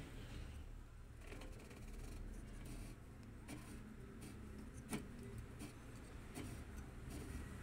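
Faint handling noise from a Xerox copier clutch and gear being worked by hand: light rubbing and a few scattered clicks of plastic parts over a low steady hum.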